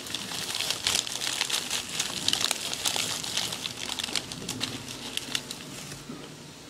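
Thin plastic bag crinkling as a hand rummages through the candy inside it: a dense run of rustles and crackles that thins out near the end.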